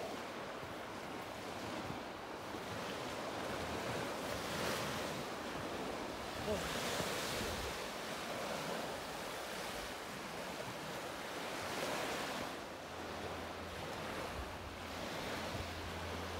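Waves washing on the shore with wind blowing across the microphone, the wash swelling and easing every few seconds. A low steady hum comes in near the end.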